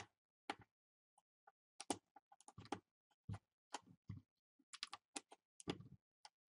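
Faint, irregular light clicks and ticks, several a second, from a small PH1 electronics screwdriver backing a screw out of the plastic screen bezel of an HP Pavilion dv7 laptop.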